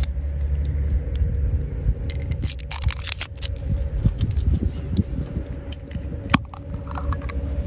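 Metal screw-top lid on a glass jar being gripped and twisted, with scraping and clicking about two to three seconds in and a single sharp click a little after six seconds as the lid comes free.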